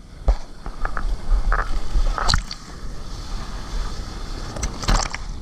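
Choppy ocean surf and splashing water right at the microphone, with a low buffeting rumble and several sharp splashes and knocks.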